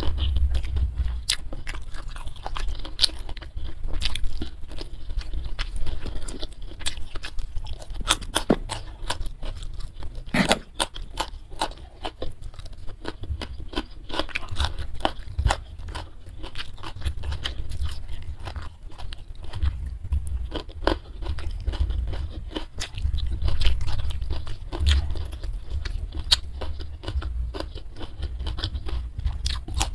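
A person chewing food close to the microphone: a steady run of wet mouth clicks and small crunches, with a few sharper ones about eight and ten and a half seconds in.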